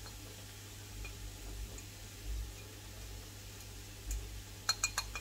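Fork tapping and scraping as chopped cabbage is knocked off a ceramic plate into a frying pan: a few faint ticks, then a quick run of sharp ringing clinks near the end, over a faint steady low hum.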